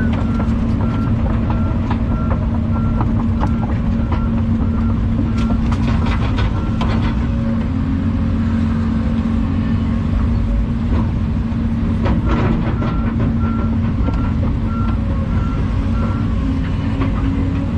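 Volvo EC220 excavator's diesel engine running steadily while its warning beeper sounds in regular beeps, first for several seconds and again in a second spell later on. Sharp clanks of metal knocking come in a cluster about six seconds in and again about twelve seconds in.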